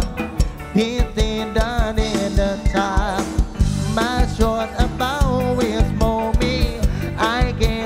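Live band playing an upbeat song, with drums on a quick steady beat under a lead melody that wavers and slides in pitch.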